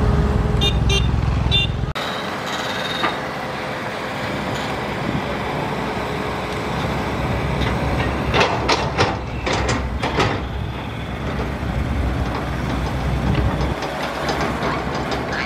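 Shantui Matador hydraulic excavator's diesel engine running steadily while it digs, louder and deeper for the first two seconds. A cluster of sharp knocks and clanks from the bucket working the ditch comes about eight to ten seconds in.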